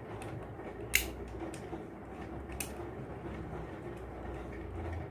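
Terminal screw of a two-way light switch being tightened down on a wire: small creaking and scraping of the turning screw, with a sharp click about a second in and another near the middle, over a steady low hum.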